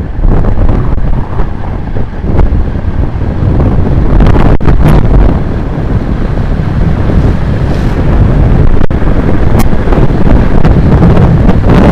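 Heavy wind buffeting the microphone of a camera on a road bike descending fast, a loud rumbling roar that surges in gusts.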